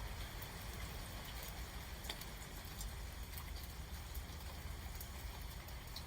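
Steady rain falling during a thunderstorm, with scattered drops ticking close by, over a low rumble.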